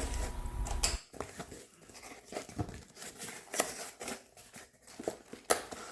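A parcel being opened by hand: irregular rustling, crinkling and tearing of packaging, with scattered small clicks.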